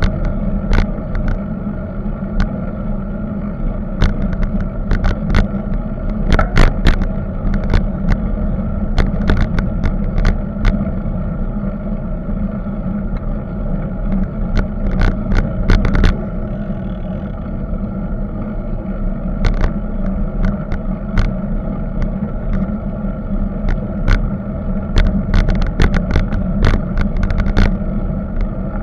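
Road and wind rumble picked up by a camera mounted on a moving bicycle. Irregular sharp rattles and clicks come in clusters as the bike rolls over bumps in the road surface.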